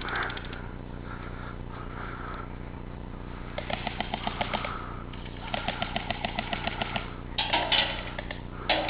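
Airsoft gun firing two full-auto bursts of rapid, evenly spaced shots, each about a second long, followed near the end by louder rustling.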